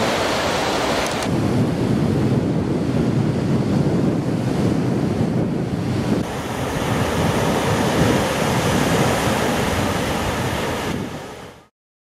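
Sea surf washing onto a sandy beach, with wind buffeting the microphone in a steady low rumble. The sound fades out near the end.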